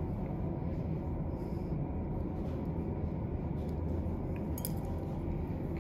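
Steady low room hum with one or two faint clicks.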